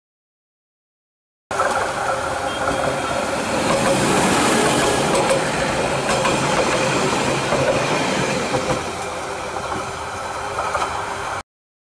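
Silence for about a second and a half, then a Bangladesh Railway passenger train running past close by, a steady rushing rumble of wheels on the rails, which cuts off suddenly just before the end.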